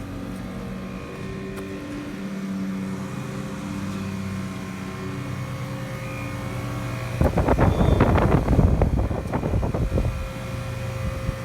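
Luxaire central air conditioner's outdoor unit running, its compressor and fan giving a steady hum, with a lawnmower engine running alongside. From about seven to ten seconds in, a loud rough rumble covers it.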